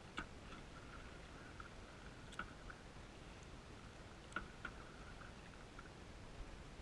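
Canoe paddling heard muffled through a camera's waterproof housing: a faint hiss with a sharp knock about every two seconds, from the paddles striking the canoe.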